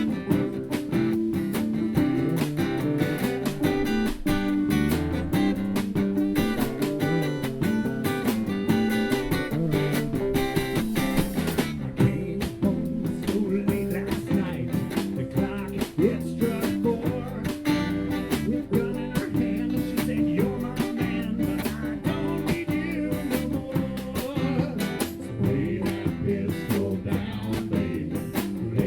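Live band playing a country song, guitar to the fore, over a steady beat.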